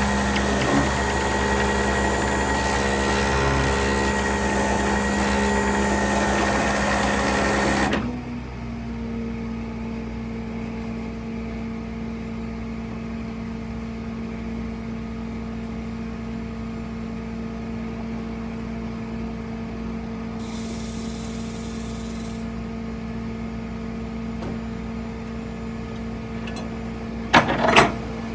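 Toyota 4Runner engine running loud for about eight seconds, then dropping suddenly to a steady idle hum. Two short loud knocks near the end.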